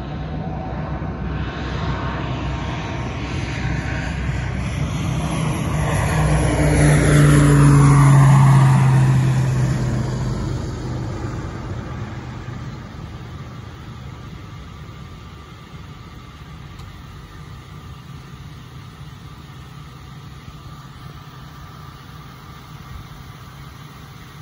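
Medical airplane taking off at full power: its engine sound builds, peaks about eight seconds in with a falling pitch as it passes, then fades steadily as it climbs away.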